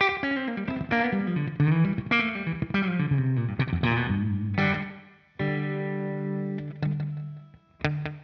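Electric guitar played through a GFI System Orca delay pedal into a Fender Super Sonic 22 amp. It plays a quick run of picked single notes for about five seconds, then one held chord, then short stabbed chords near the end.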